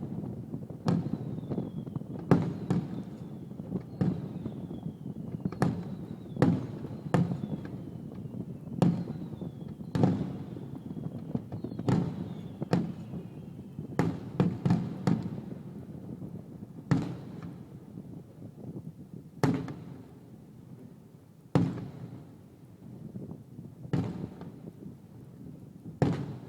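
Fireworks display: aerial shells bursting in rapid succession, each bang followed by a rumbling echo, with faint falling whistles in the first half. The bursts thin out after about fifteen seconds.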